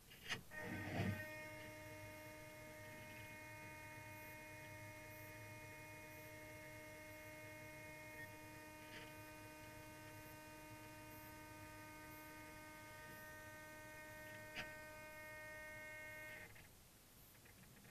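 A small electric motor aboard the radio-controlled model sailboat whines steadily, a thin pitched hum with many overtones. It starts with a couple of clicks about half a second in and cuts off near the end.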